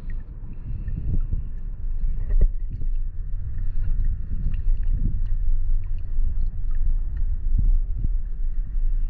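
Wind noise on the microphone with kayak paddle strokes splashing in the water every second or two.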